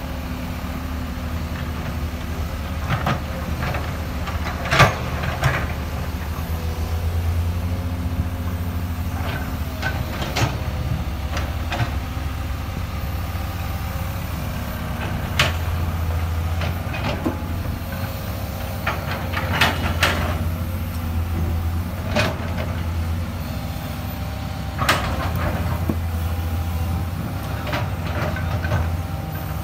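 Excavator's diesel engine running steadily and rising in several stretches as the hydraulics take load, with sharp knocks and clanks now and then from the machine at work.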